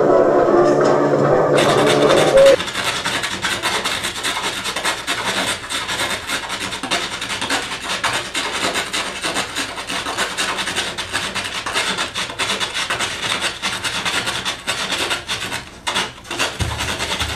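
Old film-soundtrack music, thin and cut off in the highs, stops abruptly about two seconds in. Then tap shoes work a wooden board: a dense, fast stream of taps and scuffs with no accompaniment.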